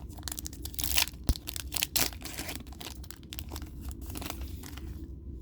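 Foil wrapper of a Yu-Gi-Oh! booster pack being torn open and crinkled, a run of sharp rustles that is loudest about one and two seconds in, with one soft knock in between.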